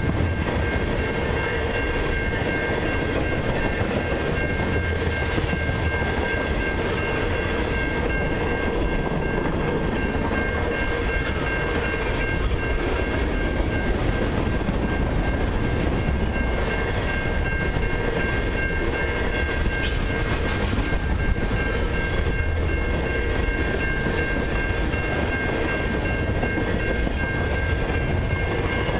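Freight cars of a long mixed freight train rolling past close by: a steady rumble of steel wheels on the rails, with a steady high tone running through it.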